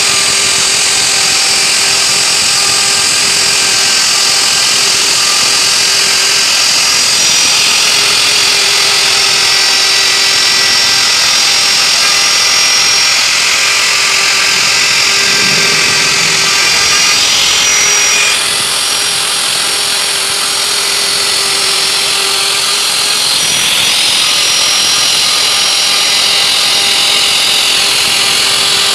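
Electric hand router running at speed, its small bit carving grooves into a wood panel: a steady, loud whine with the rasp of cutting, which shifts and dips slightly about two-thirds of the way through.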